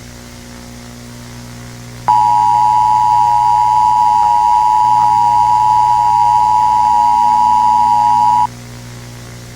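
Emergency broadcast attention signal: a loud, steady two-tone alarm that starts about two seconds in, holds for about six seconds and cuts off sharply. A low steady hum lies beneath it throughout.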